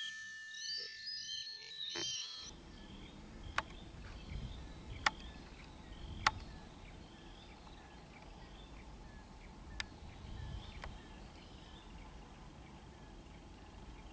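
Faint outdoor ambience of small animal calls: short, high chirps repeating less than a second apart, with a few sharp clicks spaced one to three seconds apart.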